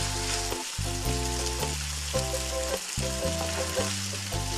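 Chicken tikka masala sizzling in a hot frying pan as it is scooped out with a spatula, just after the heat is switched off. Background music runs underneath, a repeating chord pattern that changes about every two-thirds of a second.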